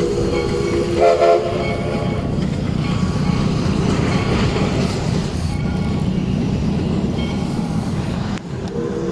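Whistle of a 1947 Baldwin Mikado steam locomotive sounding a chord: a short toot about a second in, then a long blast starting near the end. In between, the train runs with a steady rumble and clatter.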